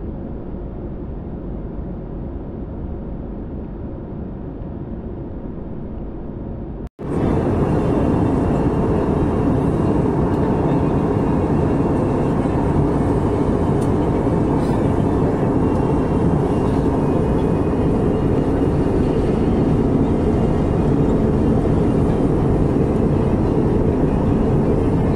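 Steady cabin noise of a jet airliner in cruise, the engine and rushing airflow heard from a window seat beside the wing-mounted engine. About seven seconds in it drops out for an instant and comes back louder and brighter.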